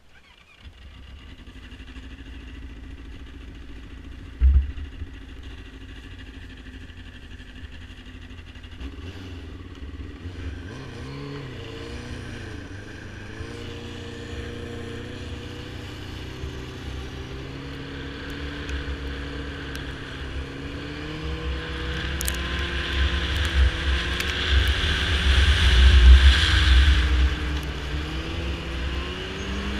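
Yamaha snowmobile running along a trail over a constant low rumble. Its engine pitch rises and falls with the throttle from about ten seconds in, and it grows louder towards the end. A single sharp knock comes about four and a half seconds in.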